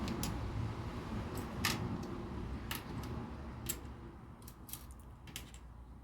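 Small plastic LEGO pieces clicking and tapping as they are picked out and handled, a dozen or so scattered clicks over a low steady hum.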